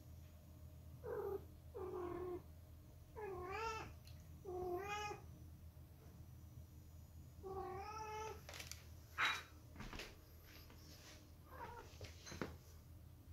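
Silver British shorthair cat meowing five times, short pitched calls spread over the first eight seconds. After them come several light knocks and taps, one sharper knock about nine seconds in.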